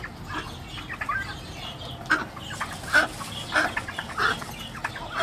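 Domestic fowl clucking: a string of short calls, louder from about two seconds in.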